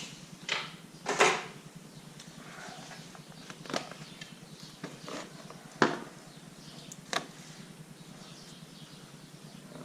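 Hands working on a dirt bike's front number plate and wiring: about five separate sharp clicks and knocks, the loudest about a second in.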